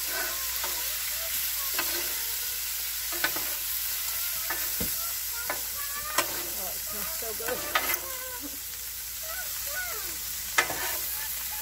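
Ground-beef sloppy joe mixture, with Coca-Cola just poured in, sizzling and steaming on a hot flat-top griddle while two metal spatulas toss and scrape it, with sharp clacks of the spatulas on the griddle several times.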